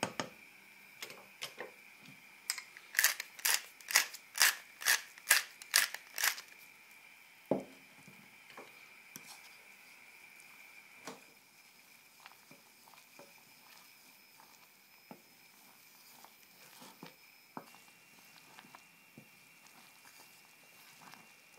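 Wooden spatula stirring and scraping a thick white sauce in a stainless-steel saucepan. A run of about eight sharp scrapes comes about half a second apart in the first few seconds, then only faint scattered scrapes and ticks.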